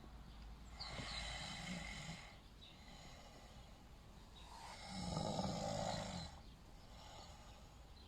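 A sleeping man snoring, with one breath about every four seconds: a softer, airy breath about a second in, then a louder, deeper snore about five seconds in.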